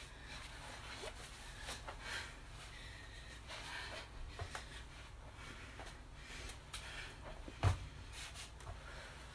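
A person breathing hard and rustling against the floor while doing lift-and-roll floor exercises. One sharp thump of the body or a limb meeting the floor comes near the end and is the loudest sound.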